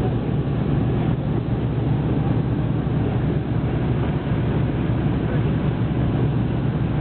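Pratt & Whitney R-2800 radial engines of P-47 Thunderbolts running, a steady deep rumble.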